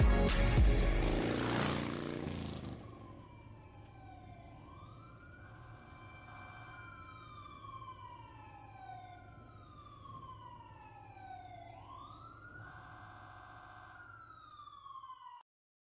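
A loud pop track ends in the first two or three seconds. A faint siren-like wail carries on after it, with falling glides and rising whoops repeating every couple of seconds, and it cuts off abruptly near the end.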